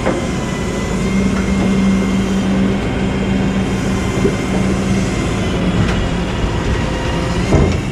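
Rollback tow truck's engine running with the bed hydraulics working, a steady hum over a broad rumble that fades about two-thirds of the way through. A sharp clunk near the end.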